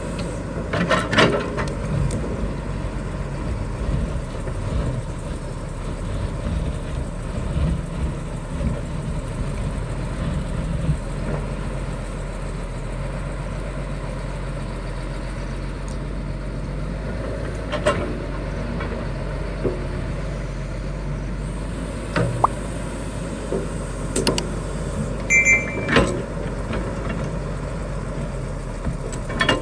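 Excavator's diesel engine running steadily, with occasional sharp metal clanks and a brief pair of high beeps near the end.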